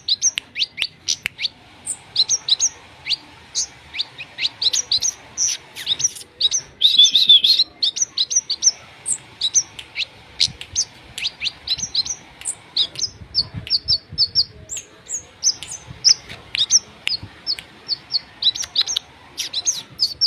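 Songbird known in Indonesian bird-keeping as a kemade singing a fast stream of sharp high chirps and short whistled notes, with a denser warbling trill about seven seconds in.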